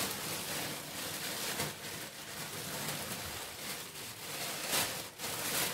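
Thin plastic bag crinkling and rustling as handfuls of spinach are pulled out of it, with a few sharper crackles.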